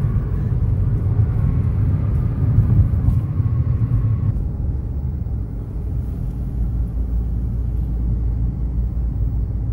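Road noise heard from inside a car driving at freeway speed: a steady low rumble of tyres and engine, its higher hiss dropping away about four seconds in.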